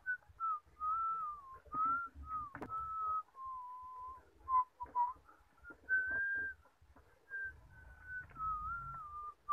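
A person whistling a slow tune, one pure note wandering up and down in short phrases with brief breaks, over faint low rustling.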